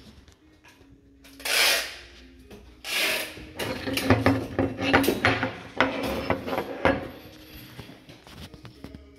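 Steel link actuation ring segments being handled on a tabletop: two short scraping noises, then a run of knocks and clinks as the metal parts are picked up, turned and set down, dying away near the end.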